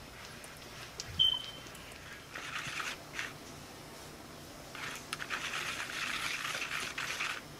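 Plastic spoon stirring and scraping thick puppy mush of baby cereal and milk replacer in a paper bowl, in two spells of soft scraping, the longer one in the second half. About a second in there is a brief high squeak with a click, the loudest sound.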